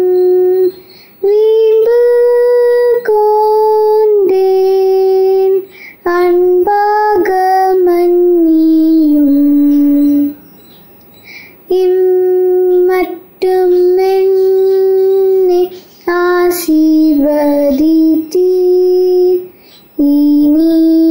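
A young girl singing a Tamil Christian song unaccompanied, in held phrases with brief breaks between them and a longer pause about ten seconds in.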